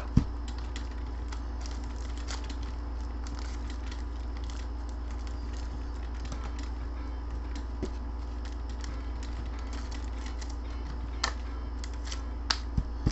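Steady low hum with scattered light clicks, a sharper one at the start and a few more near the end.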